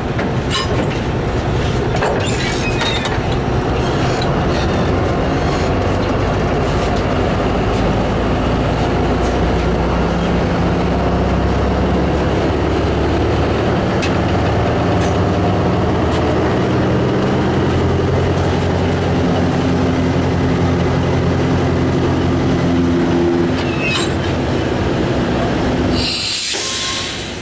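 ZCU-20 diesel locomotive idling close by with a steady, loud engine note, and a few sharp metallic clanks from the coupling work. A short burst of hissing noise comes near the end.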